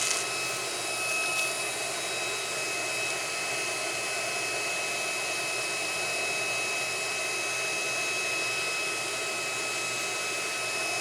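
Handheld induction heater running on a nut: steady fan noise with a constant high-pitched whine.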